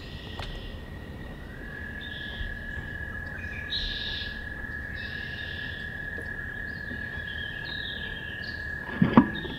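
Birdsong picked up from inside a wooden nest box, over a steady high whine. Two sharp knocks come close together about nine seconds in, as the wood duck hen shifts on her eggs against the box's wooden walls.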